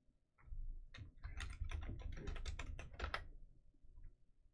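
Computer keyboard typing: a quick run of keystrokes lasting about two and a half seconds, typing in a search.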